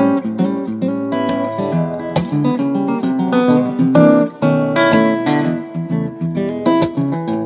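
Acoustic guitar played through an Acus acoustic-instrument amplifier, a mix of strummed chords and picked notes, as a playing test of the repaired amp.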